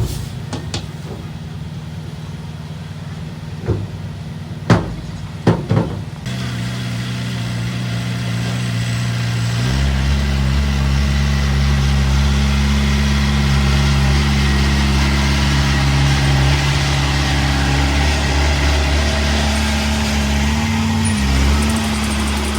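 Diesel engine of a bulldozer or dump truck at work: it runs low with a few sharp metallic clanks in the first six seconds, then revs up in two steps, about six and ten seconds in, and runs steady and louder under load.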